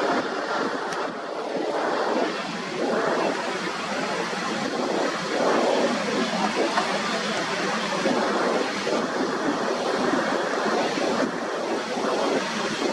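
Jet airliner's engines at takeoff power, heard as a continuous rushing noise that swells and eases every second or two.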